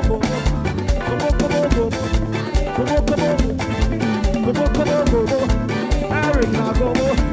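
Live praise band playing an upbeat African-style groove: a steady drum beat under bass and melodic guitar or keyboard lines, with no singing.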